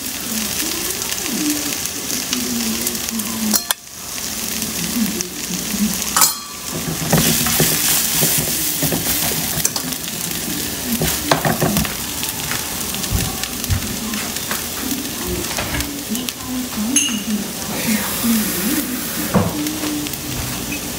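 Chopped onion, tomato and bell pepper coated in ground spices sizzling in oil in a nonstick frying pan, stirred with scraping clicks of the spoon and spatula against the pan. The masala is frying fairly dry, before any water goes in.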